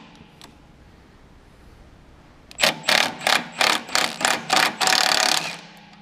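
Milwaukee M12 Stubby cordless impact wrench hammering on a bolt, first in about ten short trigger bursts, then in one longer run that stops suddenly.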